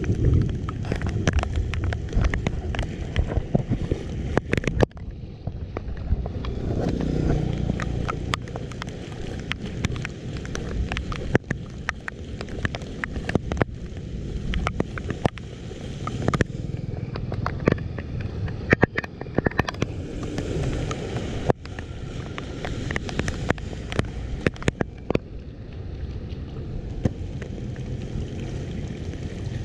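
Floodwater rushing and gurgling into a street culvert drain that is being cleared of clogged leaves, with scattered sharp clicks and knocks over the steady rush.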